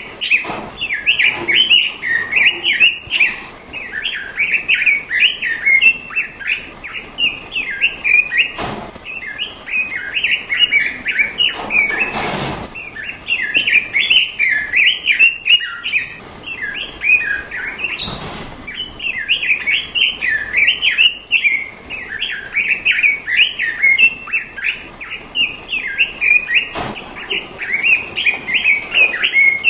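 A songbird sings a rapid, continuous chattering song of quick chirping notes. A few brief bursts of noise break in now and then.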